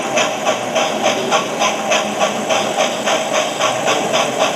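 Sound-fitted Hornby Duke of Gloucester model steam locomotive playing a steady steam exhaust chuff, about five even beats a second, with a hiss beneath, through the model's small loudspeaker.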